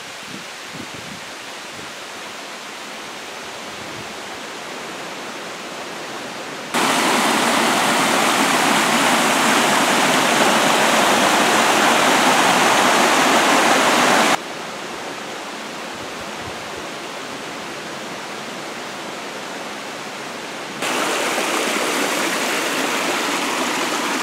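Small woodland brook rushing and splashing over rocks, running full after days of heavy rain. The rush of water is steady but jumps abruptly louder about a quarter of the way in, drops back just past halfway, and comes up again near the end.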